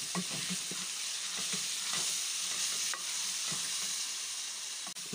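Chicken curry with freshly added yogurt sizzling steadily in a metal pot as a wooden spoon stirs it, with a few light knocks and scrapes of the spoon against the pot.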